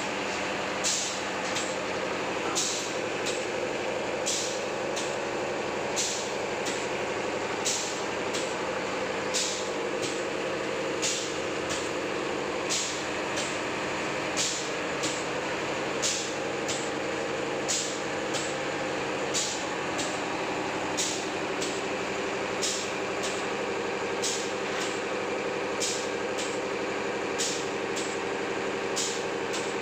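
Pneumatic dough ball cutting machine cycling: a short hiss of air from its cylinder valve about every 1.7 seconds, over a steady machine hum.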